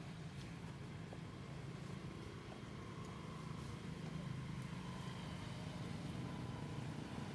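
A steady low engine drone, slowly getting louder, with a faint higher whine over it.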